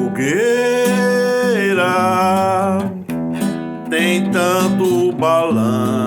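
Music: a strummed acoustic guitar under a melody of long held notes that glide up and down.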